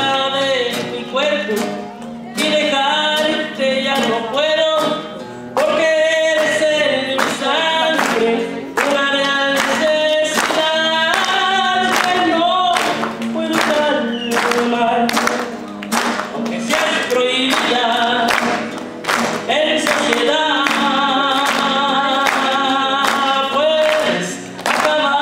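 A man singing a song, accompanied by two acoustic guitars strummed in a steady rhythm.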